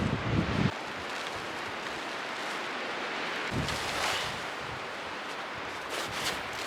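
Strong wind blowing: a low buffeting gust on the microphone in the first moment, then a steady rushing hiss that swells briefly a few times, with a few faint clicks near the end.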